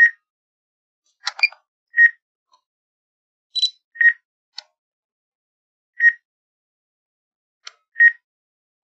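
Drone remote controller beeping: one short, high beep every two seconds, five in all, with a few fainter clicks and chirps between the beeps.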